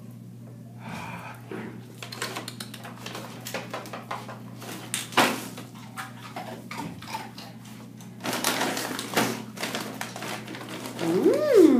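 Handling noise close to the microphone: scattered clicks, knocks and rustling while a chow chow puppy moves about against the person holding the phone, with a sharper click about five seconds in and a denser rustle around eight to nine seconds. Near the end comes a short voice sound that rises and falls in pitch.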